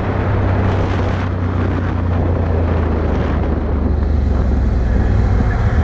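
Can-Am Outlander 1000's V-twin engine running steadily under way, its low drone rising slightly about four seconds in, with wind buffeting the microphone.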